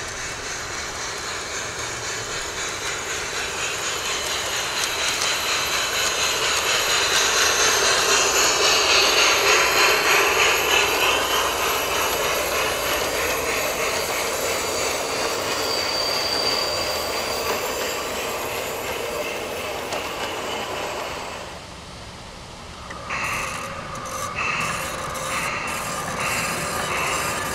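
Garden-scale model train running along its track, wheels rolling on the rails. It grows louder to a peak about ten seconds in and dips sharply a little after twenty seconds before picking up again.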